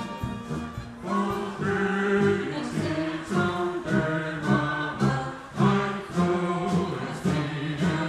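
Brass band music that changes about a second in to a group of voices singing a march in time with a Bavarian brass band.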